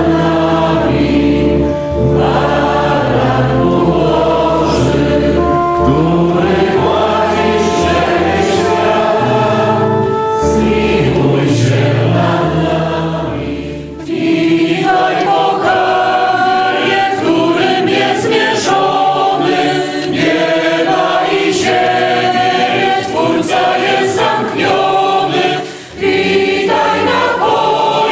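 Mixed choir of men and women singing in parts. Deep steady bass notes sound under the singing for the first half and stop at a short pause about halfway through. The choir carries on after that pause, with another brief breath-pause near the end.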